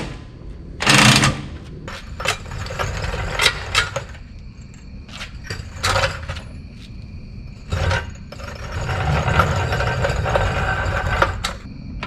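Metal knocks and clanks of tools and parts as a pickup's rear axle is unbolted and lowered out onto a floor jack. There is a short harsh burst of noise about a second in and a longer rattling stretch near the end.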